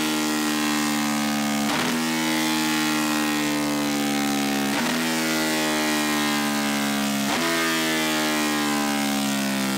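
Ducati 1299 Superleggera's 1285 cc V-twin running under load on a chassis dyno, driving the rear wheel on the roller during a break-in run. The engine note sags slowly and jumps back up in pitch at a brief sharp break about every three seconds.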